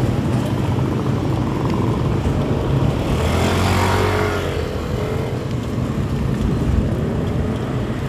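Steady wind and road rumble on the microphone of a moving bicycle. A small motorcycle engine passes close about three seconds in and fades by about five seconds.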